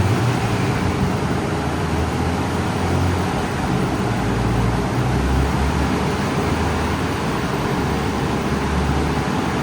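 A car driving at a steady speed: a low engine rumble and road noise that swell and ease slightly.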